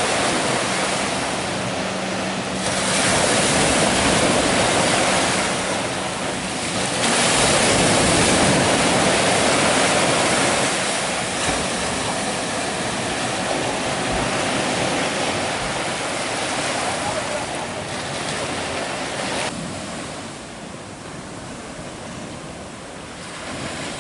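Ocean surf breaking and washing ashore, a loud rushing that swells and ebbs with each wave and eases off near the end.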